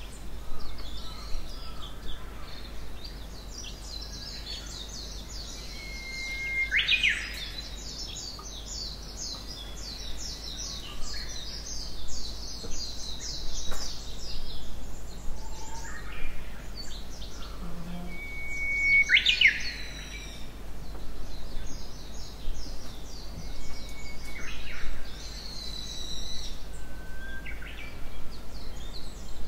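Wild birds singing in a forest. One runs a long series of rapid, high trilled notes; twice a held whistle ends in a quick rising sweep.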